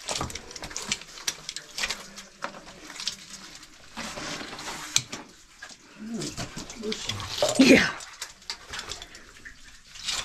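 Scuffing, scraping and clinking as a person moves through mud with caving gear, with short grunts and breaths of effort. A drawn-out "yeah" just before the end is the loudest sound.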